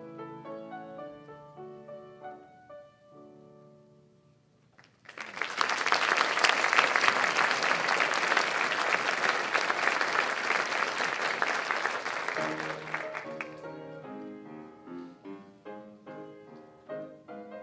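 Live solo piano playing accompaniment for ballet barre exercises, stopping about four seconds in. After a short pause an audience applauds for about eight seconds, and the piano starts again as the applause dies away.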